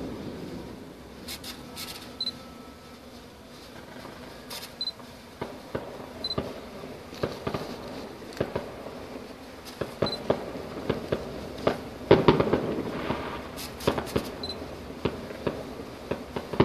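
Distant fireworks: scattered sharp pops and crackles, with a louder, denser volley about twelve seconds in and another near the end.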